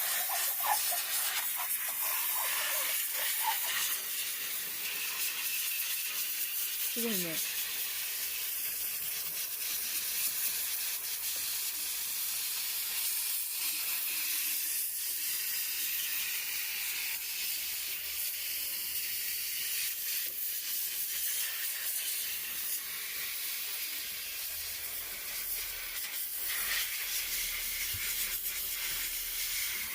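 Steady spraying hiss of water or cleaner being sprayed into an air conditioner as it is washed, with a brief falling tone about seven seconds in.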